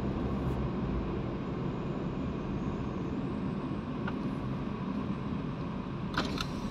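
Steady low road and engine rumble heard from inside a moving car's cabin, with a couple of short light clicks near the end.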